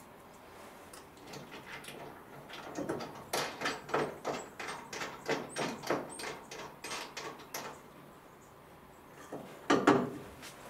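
Hand work around an engine hanging on a crane: a run of quick light clicks and knocks, about five a second, for some four seconds, then a couple of louder knocks near the end.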